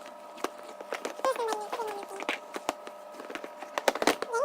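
Short snatches of high-pitched voices with many sharp clicks scattered between them.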